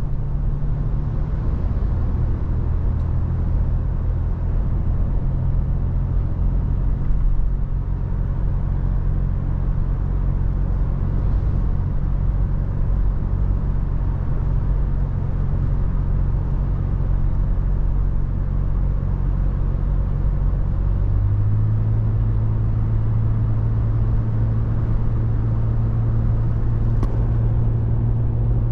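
Toyota FJ Cruiser's 4.0-litre V6 engine and tyre noise while driving, a steady low hum. About two-thirds of the way through, the engine note steps up slightly.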